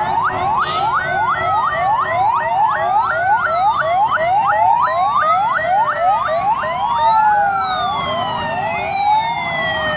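Several emergency-vehicle sirens sounding at once from passing fire-rescue pickups and fire trucks. One fast yelp sweeps upward about three times a second over slower wails that rise and fall every two seconds or so.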